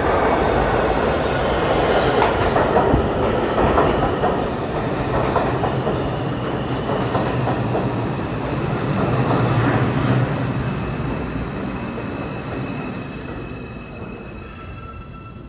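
New York City subway train pulling into the station and braking to a stop: loud rumble and clatter of the cars running along the platform. It dies down over the last few seconds as a steady whine in several pitches rises out of it.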